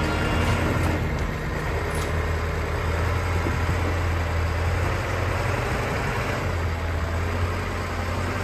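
Off-road truck engine running with a steady low drone.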